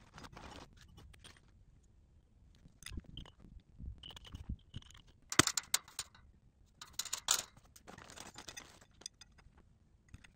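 Metal clinks, scrapes and rattles as fence pipe, connector fittings and hand tools are handled, in irregular clusters, with one sharp metallic knock about five seconds in.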